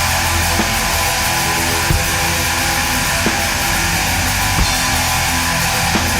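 Background music: distorted electric guitar rock with a steady beat.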